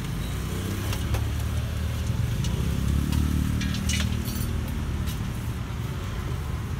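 Low rumble of road traffic that swells as a vehicle passes about three seconds in, with a few light metallic clinks from a steel pot being handled.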